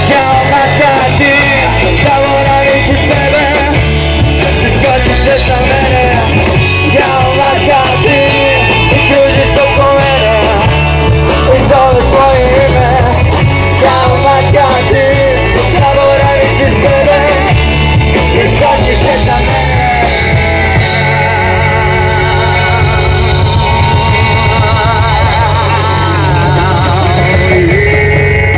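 Rock band playing live: electric guitars, bass and drums with a lead vocal, loud and continuous.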